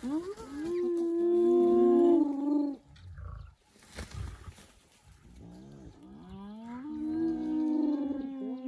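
Spotted hyenas calling at a kill: two long drawn-out calls, each rising steeply at the start and then held at a steady pitch. The second is led in by a quick run of short rising-and-falling notes.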